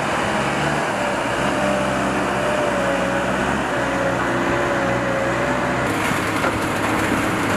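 Aircraft cargo loader's engine running steadily as it drives, with a whine that wavers in pitch. Near the end the whine drops out and a brighter hiss takes over.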